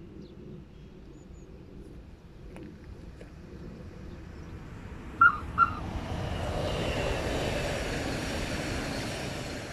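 Red Rhaetian Railway passenger train approaching and passing: two short horn toots about five seconds in, the loudest sounds, then a rising rush and rumble of wheels on rail as the coaches go by close up, beginning to fade near the end.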